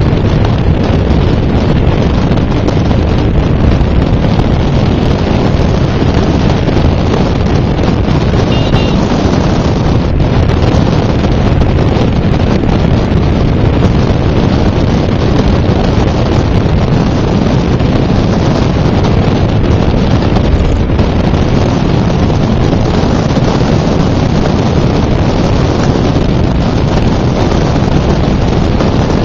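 Loud, steady wind noise buffeting the microphone, with road rumble from the moving car. A short faint high beep sounds about nine seconds in.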